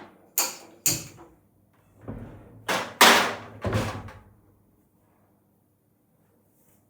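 A quick run of about five knocks and thuds over the first four seconds, the loudest about three seconds in, then quiet.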